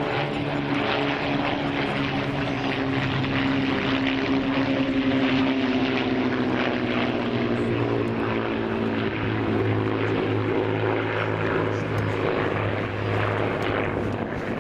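A formation of vintage Hawker propeller aircraft, including Nimrod biplanes, flying past with their piston engines droning together. The engine pitch slides down a few seconds in as they pass.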